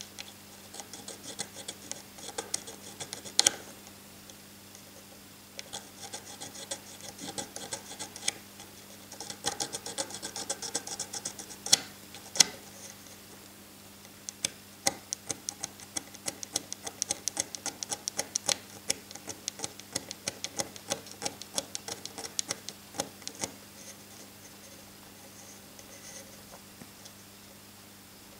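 Diamond needle file working the edge of a small hardened-steel watch hand against a wooden peg: quick short scraping strokes, several a second, in runs with brief pauses and a few sharper clicks. The filing is removing the tags left from cutting out the hand; the strokes die away near the end.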